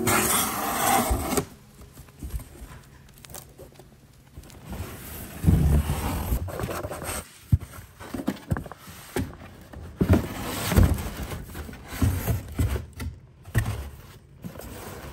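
Hands handling a corrugated cardboard shipping carton: a shoe box sliding and scraping against the cardboard, with irregular scuffs and dull thumps as the carton is reached into. A short tail of music ends about a second and a half in.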